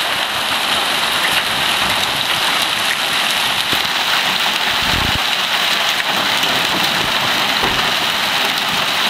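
Hail and rain pelting down onto pavement and a car: a loud, steady, dense hiss flecked with many sharp ticks.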